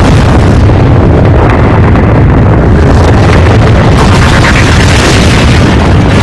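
Dramatized asteroid-impact explosion: a blast hits right at the start and carries on as a loud, continuous rumble of the shock wave, with a brighter crackle of debris around the middle.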